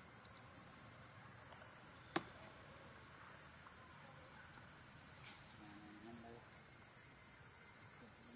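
Steady high-pitched chorus of insects, with a single sharp click about two seconds in.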